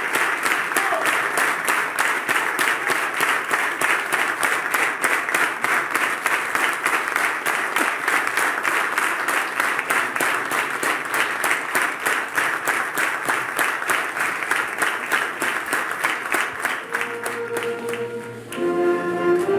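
Concert audience applauding, the claps falling into a steady, even rhythm. About 17 seconds in, the applause dies away and music begins with held notes that step up in pitch about a second and a half later.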